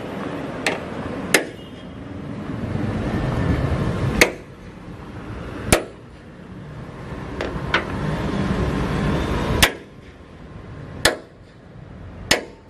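Hammer blows on metal: about nine sharp, irregular strikes a second or more apart, some ringing briefly. A low rumble rises and falls between them.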